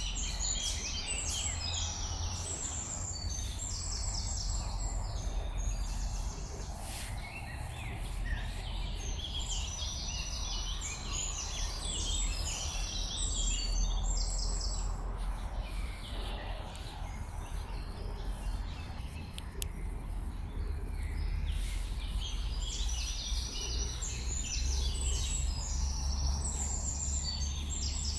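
Songbirds singing in repeated bouts of quick, high, trilling notes, over a steady low rumble.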